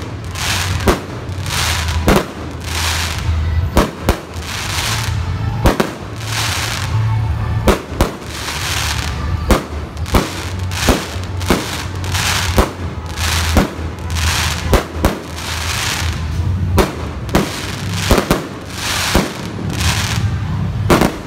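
Aerial fireworks going off in a rapid series: sharp bangs about one or two a second, each followed by a short hissing crackle as the shells burst.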